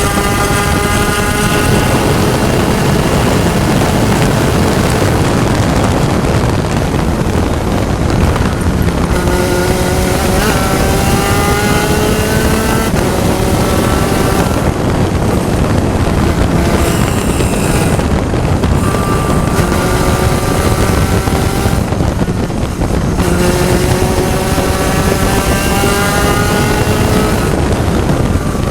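Spec Racer Ford Gen3 race car's four-cylinder engine at racing speed, its pitch climbing steadily through each gear for a few seconds and then falling back at shifts or lifts several times, with heavy wind and road noise throughout.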